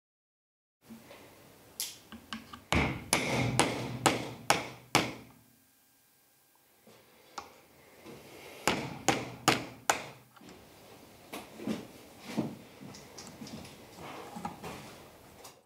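Hammer blows on a steel drift driving a bearing in a combine side-knife conrod eye held in a bench vise. There is a quick run of sharp metal-on-metal strikes, then a short pause, then about three more strikes, followed by lighter clinks and taps of tools on metal.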